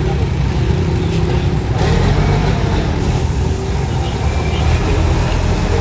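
Motor vehicles running and driving past at close range, a steady low rumble of engines and traffic.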